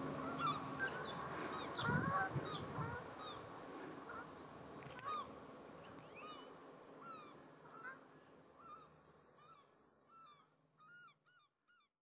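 Flock of estuary waterbirds calling, many short calls in quick succession over a steady background hum, fading out gradually to silence just before the end.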